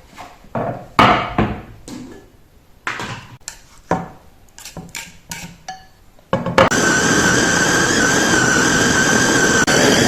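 Irregular knocks of a knife cutting pork on a wooden board. About six seconds in, an electric food chopper starts and runs loudly and steadily with a whine, mincing the pork.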